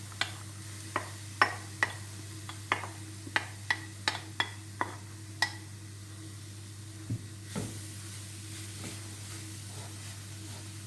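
A utensil knocking and scraping against a cooking pan while grated carrots are stirred, sharp knocks about twice a second that stop about halfway through, with two softer knocks later. A steady sizzle of the carrots cooking runs underneath.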